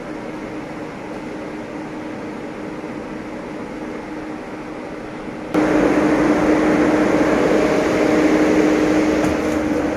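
Steady mechanical hum of a passenger train carriage, with one steady tone in it, jumping abruptly much louder about five and a half seconds in.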